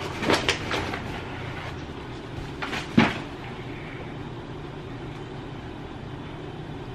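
Rustling and crackling of a paper towel wrapping being handled, with several sharp crackles in the first second and a louder sharp one about three seconds in, over a steady low background hum.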